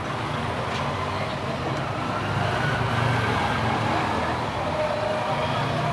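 Steady low rumbling background noise with faint gliding tones, slowly building, of the kind road traffic makes.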